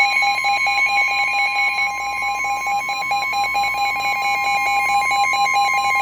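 NOAA Weather Radio warning alarm tone: a loud, steady high-pitched tone with a lower, rapidly pulsing beep under it, sounding ahead of a severe thunderstorm warning.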